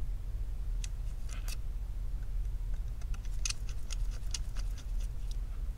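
Precision screwdriver backing out one of the two bottom pentalobe screws of an iPhone 11 Pro Max: scattered light clicks and ticks as the bit turns in the screw and the knurled handle is spun between the fingers, over a steady low hum.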